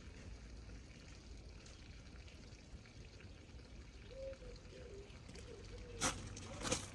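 Water running faintly from a garden hose onto soil, a soft steady pour. Two sharp clicks come near the end.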